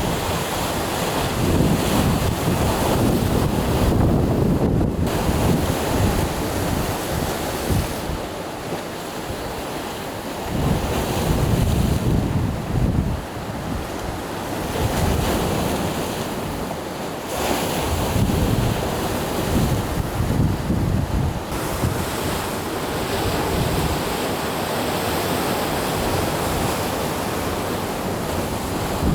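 Sea waves washing ashore in a steady surf, with wind buffeting the microphone in uneven gusts that rumble and fade every few seconds.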